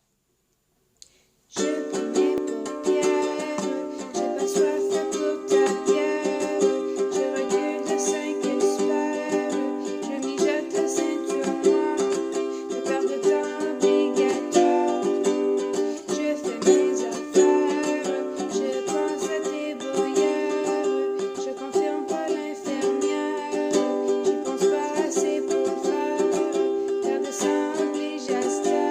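Ukulele playing an instrumental tune, picked and strummed, starting about a second and a half in after a brief silence.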